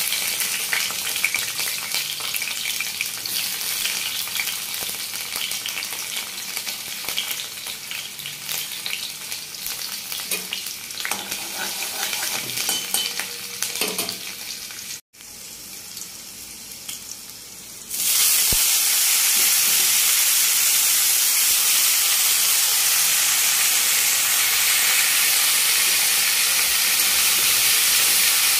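Green chillies and garlic crackling and sizzling in hot oil in a kadai. About two-thirds of the way through, after a short break, chopped leafy greens frying in the pan take over with a louder, even hiss while a spatula stirs them.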